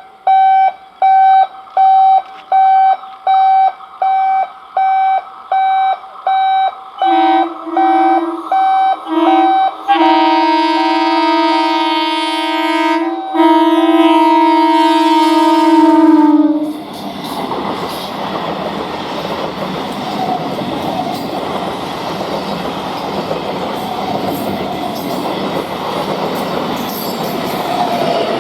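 A steady train of rapid electronic warning beeps, then a local electric train's horn sounding loud, first in short toots and then in one long blast. About halfway through the horn stops and the train passes close by, its wheels and carriages making a steady loud rumble.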